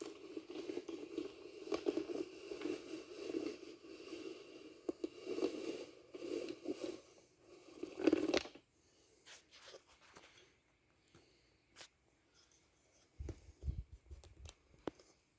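Handling noise as the camera is moved and repositioned: rubbing and scraping against the microphone for about eight seconds, then scattered clicks and a few low knocks near the end.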